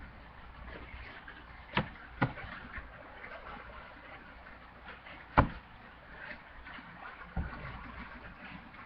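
Four short, sharp taps: two close together just under two seconds in, the loudest about five and a half seconds in, and a softer one near the end. A steady low hiss lies underneath.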